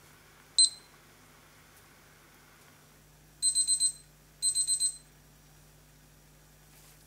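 Dretec digital kitchen timer beeping: one short high beep from a button press, then two quick bursts of rapid beeps, the timer's alarm signalling that the set time is up.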